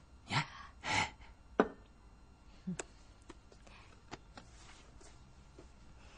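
Two short breathy whispers or sighs from a person's voice in the first second, then a quiet room with one sharp click and scattered faint ticks and taps.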